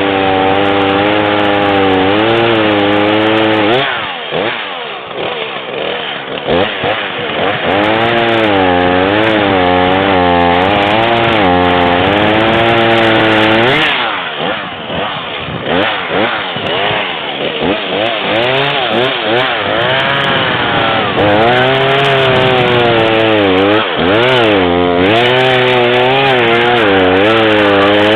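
Two-stroke chainsaw running and cutting wood, its engine pitch rising and falling as it bites into the cut. It eases back off throttle twice, about four seconds in and again about halfway through.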